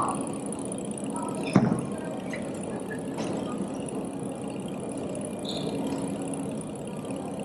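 Steady background traffic hum of a busy street and station entrance, with one sharp knock about one and a half seconds in.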